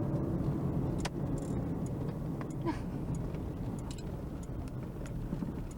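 Car driving along a road, heard from inside the cabin: a steady low engine and road rumble with a few faint clicks and ticks.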